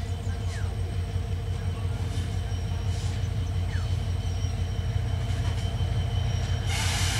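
EMD GT42 diesel-electric locomotive approaching slowly, its engine running with a steady low drone that grows slightly louder. Near the end comes a short burst of hiss.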